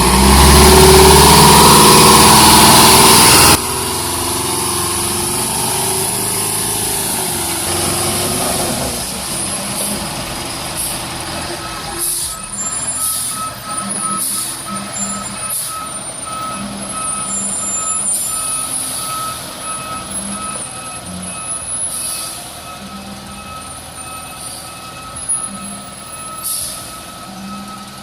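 Heavy logging truck working: a loud hiss for the first few seconds, then the truck running with short air hisses and a repeating backup beeper from about halfway on.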